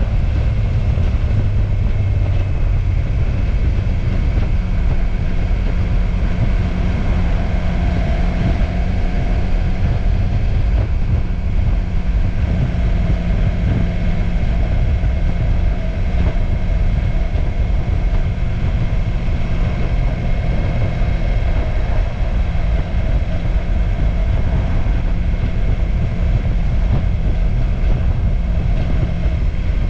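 Motorcycle engine running at a steady, even speed while riding, under constant wind rush on the microphone.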